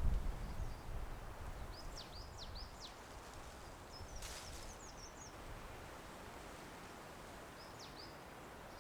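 Small birds calling with short, high chirps that sweep down in pitch, in a quick cluster about two seconds in, another around four to five seconds, and a single call near the end, over a faint outdoor background. A low rumble fades in the first second, and a brief rustle comes at about four seconds.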